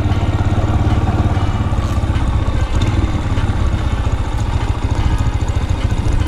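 Yamaha XTZ 125's single-cylinder four-stroke engine running steadily at low speed as the motorcycle rolls slowly across grass.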